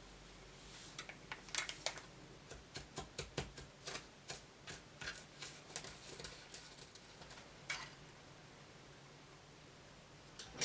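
Tiny plastic spoon tapping and scraping in a small plastic candy-kit tray while stirring powdered dough mix, a run of faint, irregular light clicks that thins out after about eight seconds, with one sharper click near the end.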